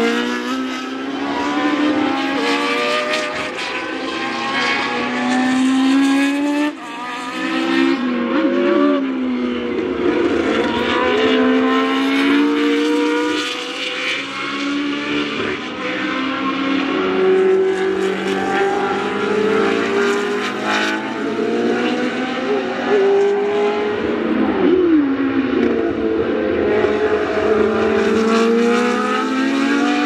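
Historic 1966–1985 Formula One cars at racing speed, their engines revving up through the gears with quick upshifts, several cars in turn. About seven seconds in the sound cuts briefly, and near twenty-five seconds one engine note falls away as a car goes past.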